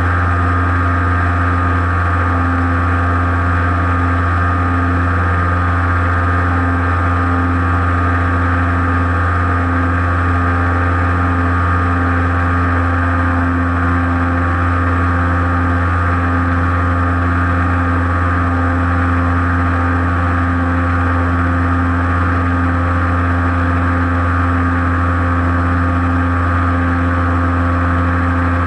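Radio-controlled FPV airplane's motor and propeller running steadily in flight, picked up by the onboard camera: a deep hum under a steady higher whine, holding the same pitch throughout.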